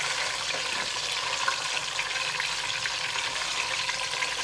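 A piece of salted fish (momoni) frying in hot palm nut oil in a pot: a steady sizzle with small crackles.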